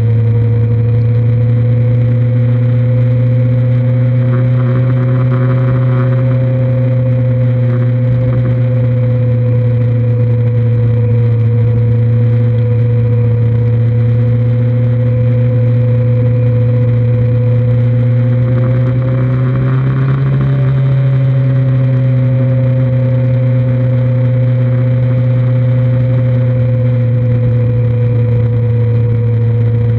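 2003 Kawasaki Z1000's inline-four engine running steadily while riding along at a constant pace, its note rising and easing slightly with the throttle, with a brief change in pitch about twenty seconds in. Wind and road noise run beneath it.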